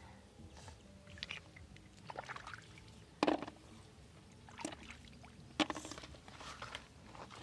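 A hand dipping and scooping in shallow river water at the bank, making a string of small splashes and sloshes, the loudest about three seconds in.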